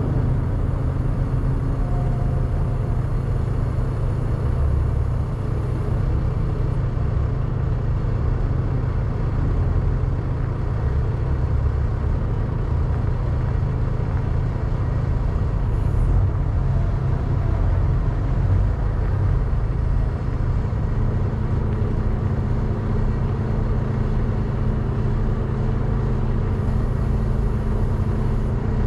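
A vehicle engine running steadily, a continuous low rumble.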